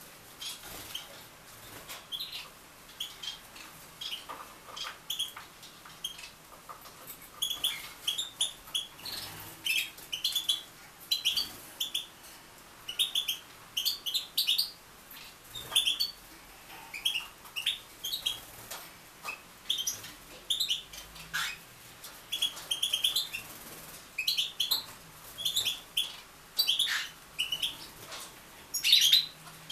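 Small aviary birds chirping: many short, high chirps, often in quick runs of several, keep coming throughout.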